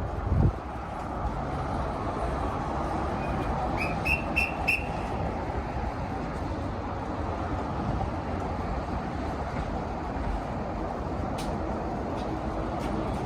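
Steady rumble of a slow-moving train, with three short high-pitched whistle peeps about four seconds in.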